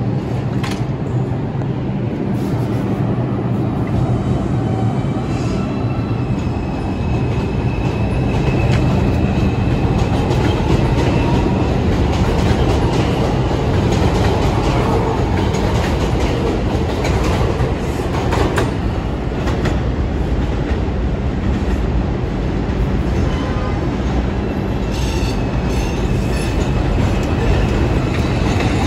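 R142 subway train running along the track: a steady loud rumble with repeated clicks of the wheels over rail joints. Thin high wheel squeals come in twice, from about five seconds in and again near the end.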